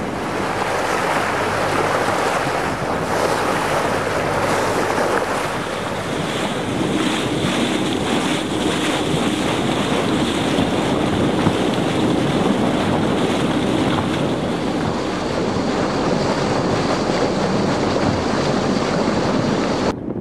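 Fishing boat under way: steady wind buffeting the microphone and water rushing past the hull, with a low engine drone underneath.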